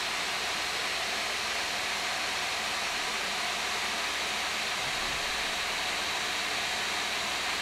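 Four GeForce GTX 480 graphics cards in quad SLI, their blower fans running flat out under full FurMark load: a steady, loud rush of air with a faint high whine.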